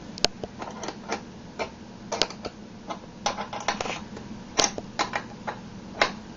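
Small clicks and clinks of hold-down clamp hardware being handled: a step block, clamp and bolt fitted by hand on a CNC router's T-slot table, in about fifteen irregular knocks, some in quick runs.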